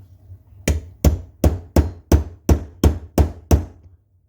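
A hammer striking a pistol part in a quick, even series of nine taps, about three a second, while the pistol's firing pin is being driven out.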